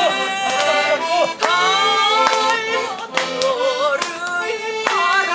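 A singer sings a Korean song in Korean over an instrumental accompaniment, with hands clapping along to the beat.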